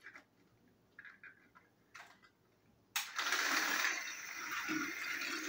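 A few light clicks, then about three seconds in a sudden start of a loud whirring rattle: battery-powered TrackMaster and Plarail toy trains running along plastic track.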